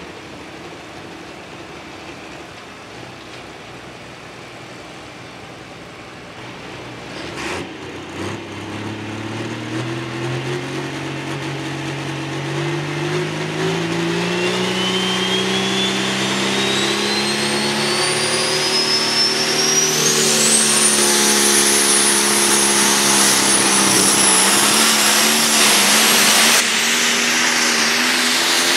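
International pulling tractor's turbocharged diesel engine at a low idle, then a sharp knock about seven seconds in, after which the engine comes up under load. The engine note climbs steadily, and a turbocharger whistle rises to a high shriek that holds near the end.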